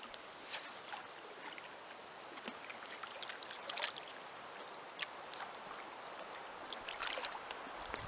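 Small waves lapping at the lake shore, faint and uneven, with scattered little splashes.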